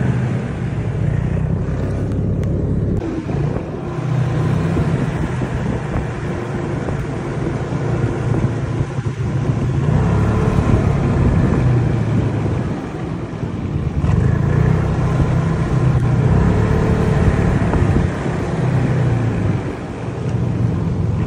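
Snowmobile engine running while being ridden, a steady drone that swells and eases several times with the throttle.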